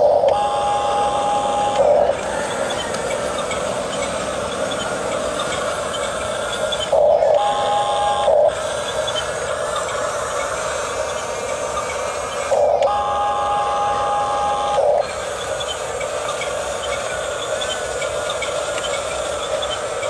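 Small electric gear motors of a Huina 1569 RC bulldozer whirring over a steady mechanical hum, with a louder, higher whine that switches on sharply three times for one to two seconds as the tracks are driven.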